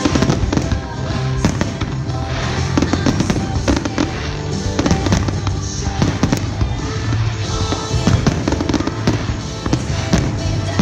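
Aerial fireworks shells bursting in quick succession, a dense run of bangs, over the display's accompanying music.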